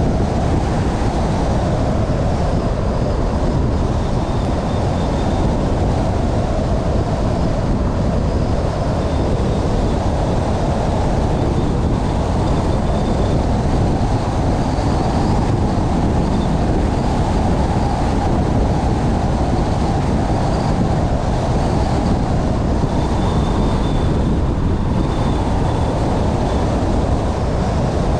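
Steady road and wind noise of a car driving at speed, with a faint high whine that comes and goes.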